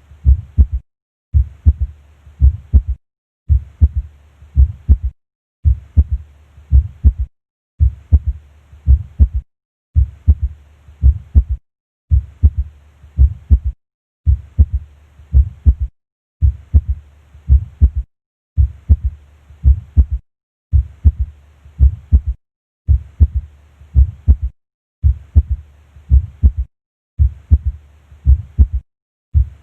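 Heart sounds auscultated at the cardiac apex: the first and second heart sounds followed by a soft, low third heart sound (S3), a physiological S3 giving a gallop rhythm. The short recording repeats about every two seconds, with a brief silence between repeats.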